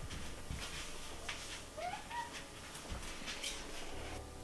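A long-haired black-and-white cat gives one short, rising meow about two seconds in, among light clicks and taps of kitchenware as yogurt is spooned from a tub into a bowl.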